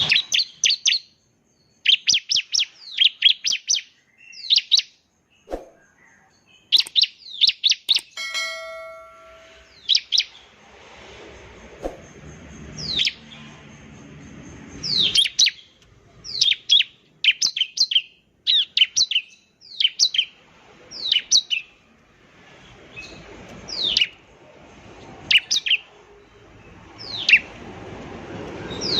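Bar-winged prinia (ciblek) singing: sharp, high, downward-slurred notes given in quick clusters again and again. About eight seconds in there is a brief steady tone with overtones, and from about ten seconds on a low background rumble sits under the song.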